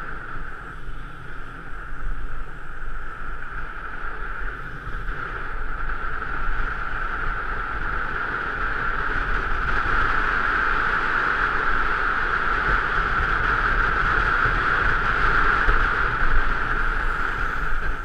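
Wind rushing over an action camera's microphone during a fast mountain-bike descent on tarmac, with a steady hum from the bike rolling along the road that grows louder around the middle.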